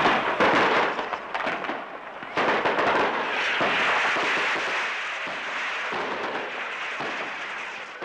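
Fireworks going off: a dense run of firecracker bangs and crackling, with a fresh burst about two and a half seconds in, then slowly fading.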